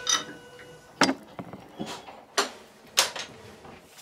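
Several sharp metallic clacks, roughly one every half second to second, from the handle and mechanism of an electric train token instrument being worked by hand. The tail of a bell ring fades out in the first moments.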